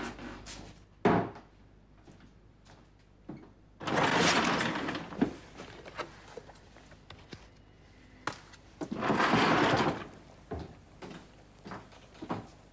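Aerosol spray can hissing in two long bursts, about four and nine seconds in, each lasting over a second. A sharp knock comes about a second in, and small knocks and clicks of things handled in a cupboard fall between.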